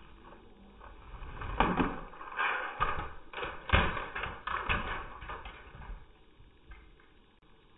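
A LEGO car crashing and tumbling, its plastic bricks clattering in a string of sharp knocks for a few seconds, the loudest about midway.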